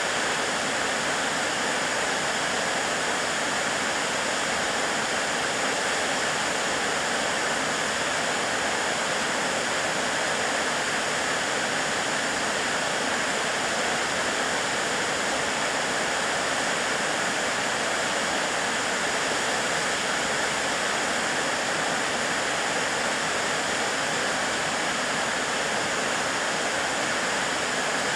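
Narada Falls, a large waterfall, giving a steady, unbroken rush of falling water.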